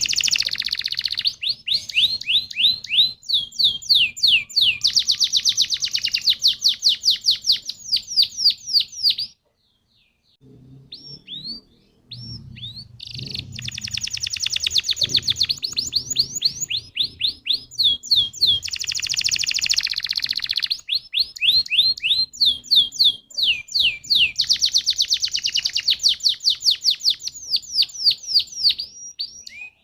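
Domestic canary singing long rapid trills of quick repeated sweeping notes, pausing about nine seconds in and starting again a few seconds later.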